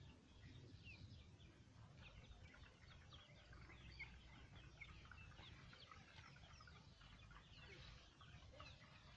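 Faint peeping and clucking of a flock of crossbred chickens and chicks: many short, high calls scattered throughout, over a low rumble.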